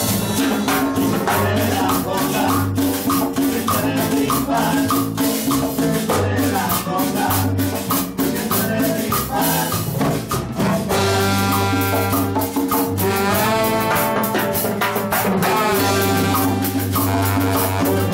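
Live cumbia band playing: drums, cymbals and congas keep a steady beat over a repeating bass line, and about eleven seconds in a horn section of trombone, alto saxophone and trumpets comes in with long held notes.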